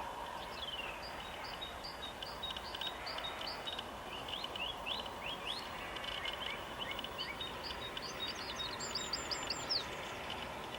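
Songbirds singing: runs of short chirping notes, ending in a quick burst of sharp rising notes near the end, over a steady outdoor hiss.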